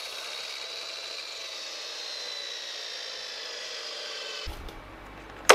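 Triton 12-inch sliding compound mitre saw's motor and blade coasting down after a cut: a whine that falls slowly in pitch, the sign that its electric brake has not caught, a brake that only works sometimes. About four and a half seconds in the whine drops away, and a sharp loud hit comes at the very end.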